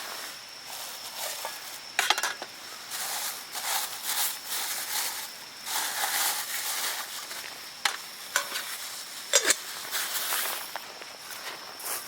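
Irregular crackling and rustling with several sharp clicks, over a steady high-pitched insect drone.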